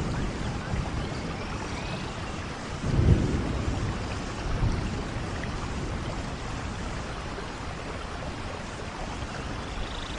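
Steady rainfall with a low rumble of distant thunder swelling about three seconds in and a smaller one soon after.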